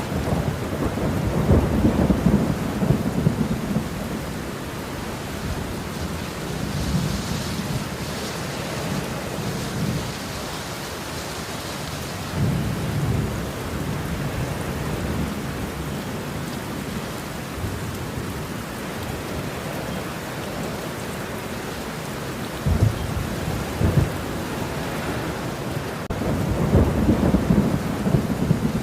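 Thunderstorm: steady rain falling, with rolls of low thunder rumbling in and out, strongest near the start and again near the end.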